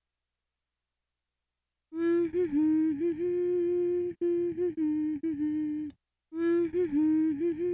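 Silence for about two seconds, then a woman humming a wordless tune in long held notes, with a short break about six seconds in before the melody picks up again.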